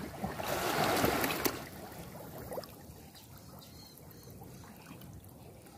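Water splashing and sloshing as someone moves through it: a loud burst of splashing in the first second and a half, then quieter trickling and dripping.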